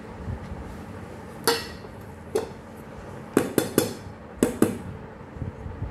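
Upturned metal cake tin knocked and clanked against a ceramic plate, about seven sharp knocks with a short ring, several in quick succession in the middle. The knocks loosen the baked cake so that it drops out of the tin onto the plate.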